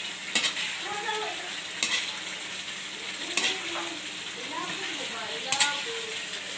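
Chicken pieces sizzling as they fry in a sauce in a metal wok, stirred with a metal ladle that knocks sharply against the wok four times.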